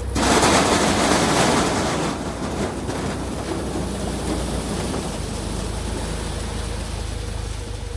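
Tractor and harvesting machinery running steadily. Just after the start, a loud rushing, rattling noise sets in suddenly and eases after about two seconds to a steadier level.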